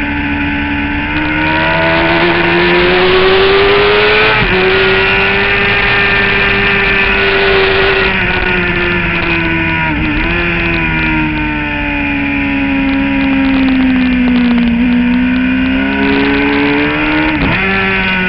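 Suzuki GSX-R750 inline-four engine at speed on track, revving up and then dropping sharply in pitch about four seconds in at a gear change. The revs fall gradually through a slower section, climb again and drop sharply once more near the end, with steady wind rush on the bike-mounted camera.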